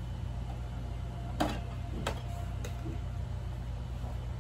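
Three light plastic clicks a little over half a second apart as toy kitchen pieces and play food are handled, over a steady low hum.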